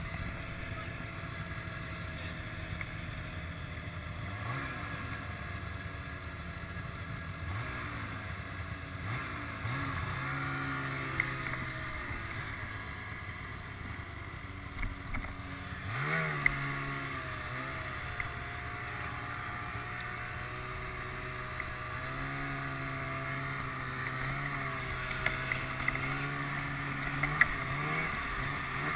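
Ski-Doo snowmobile engine running under way, its pitch rising and falling with the throttle and then holding steady for the second half, with a few sharp knocks.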